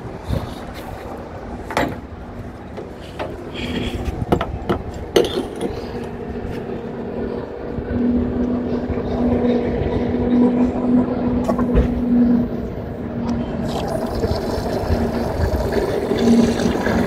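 Petrol pump dispensing 95-octane fuel through the nozzle into a car's tank: a steady hum with rushing liquid that sets in after a few clicks and knocks of the nozzle being handled, growing stronger about eight seconds in.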